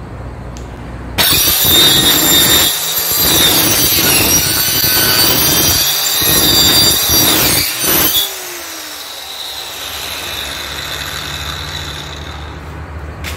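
Bosch handheld marble-cutter-type circular saw running, its blade biting into the side of an MDF cabinet about a second in: loud rough cutting with a high whine for about seven seconds, with a few brief dips. Near the end the blade comes out of the cut and the saw runs on freely, quieter, with a steady whine.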